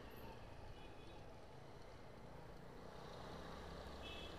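Faint, steady low rumble of a motor scooter riding slowly.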